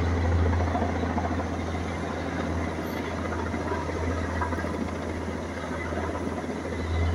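Kamov firefighting helicopter flying with a water bucket slung below: a steady, loud rotor and engine drone with a deep, slightly pulsing low hum.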